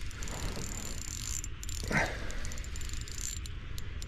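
Spinning reel being cranked, winding in line with a hooked fish on, a steady whir with fine clicks. There is one short louder sound about two seconds in.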